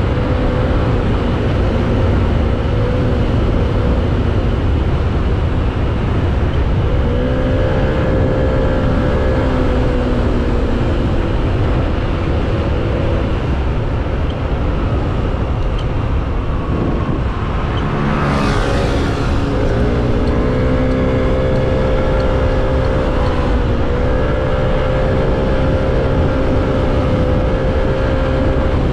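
Motorcycle engine running at highway cruising speed under heavy wind noise on the rider's microphone. A little past halfway the engine note fades for a few seconds and then comes back as the bike picks up speed again, with a brief rushing swell just before it returns.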